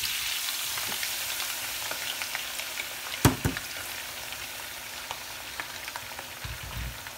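Sliced raw potatoes sizzling and crackling in hot olive oil in a frying pan just after being tipped in, the hiss loudest at first and slowly easing. A sharp knock about three seconds in, and a low thump near the end.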